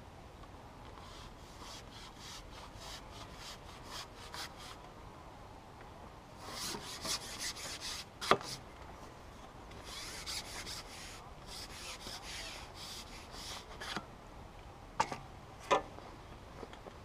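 Carbon match-fishing pole being slid and handled, rasping against clothing and kit in bursts of rapid short scraping strokes, with a few sharp knocks, the loudest about halfway through and several more near the end.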